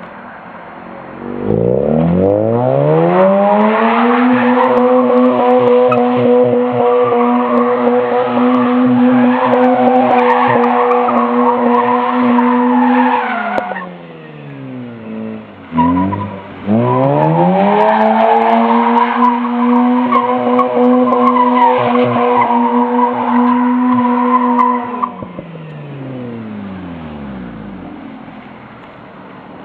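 Mazda RX-8's twin-rotor Wankel rotary engine revving up and held at high revs while the rear tyres spin and squeal through a donut, dropping back to idle about halfway. After a quick blip it revs up again for a second donut, squealing, and falls back to idle near the end.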